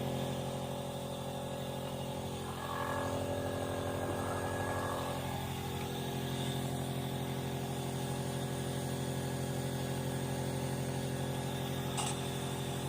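A steady machine hum made of several fixed tones, with a faint rising-and-falling sound between about two and five seconds in and a short click near the end.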